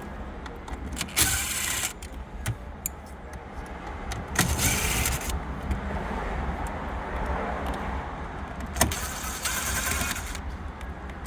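Cordless power screwdriver whirring in three short runs, each a second or so long, backing out the screws that hold the factory radio in the dash.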